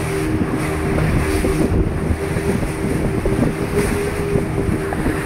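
Motorboat running at speed on a river: a steady engine hum under the rush of water along the hull, with wind buffeting the microphone.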